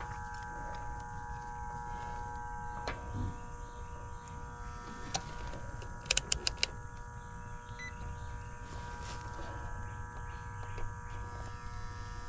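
Steady electrical hum with several held tones, and occasional tool clicks, including a quick run of four sharp metallic clicks about six seconds in, from work on an air-conditioning unit's electrical parts.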